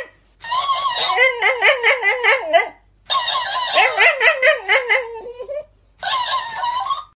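A Shiba Inu's high-pitched, warbling whines in three bursts, the pitch wobbling quickly up and down.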